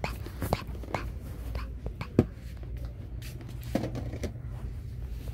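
Light clicks and knocks of goods and packaging being handled, scattered and irregular, the sharpest about two seconds in, over a low steady hum.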